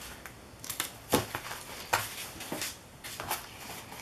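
Thin paper napkins rustling and crinkling as they are handled and smoothed flat on a table, with a few sharp taps, the loudest about a second in.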